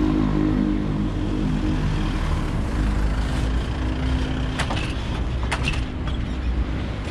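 Ambulance van's engine running close by as it pulls past and drives over the railway level crossing. There are a few sharp knocks about two-thirds of the way in as its wheels go over the rails.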